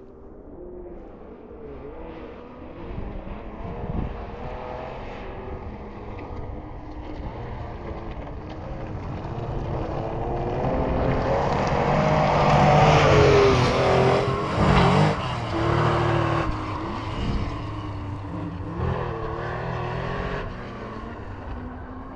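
A rally car on a forest stage approaching, its engine note rising and falling as the driver works the throttle and changes gear, loudest about two thirds of the way through as it passes close by, then fading as it goes on down the stage.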